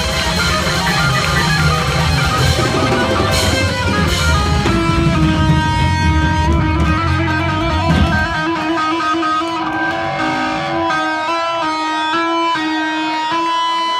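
Heavy metal band playing live: electric guitar, bass and drums together at full volume. About eight seconds in, the bass and drums drop out, leaving the electric guitar alone playing single held notes one after another.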